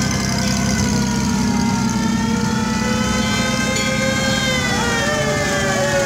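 Antique fire engine sirens wailing, their pitch sliding slowly down and up, over the steady low running of the truck engines driving past.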